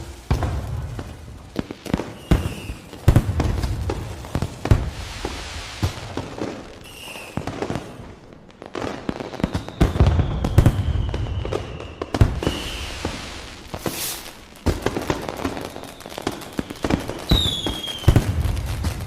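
Fireworks going off: a rapid series of sharp bangs and crackles over low booms, with a falling whistle a little past halfway and another near the end.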